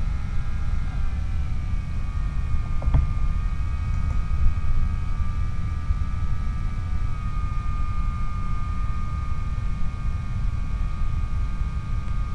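Skyhunter RC plane's electric motor and propeller whining steadily over heavy wind rush on the onboard microphone, the whine dropping slightly in pitch twice as the throttle is eased back. A brief click about three seconds in.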